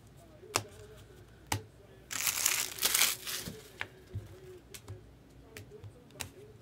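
Trading-card packaging being handled: scattered light taps and clicks, then a loud crinkling tear of foil or wrapper lasting a little over a second, about two seconds in.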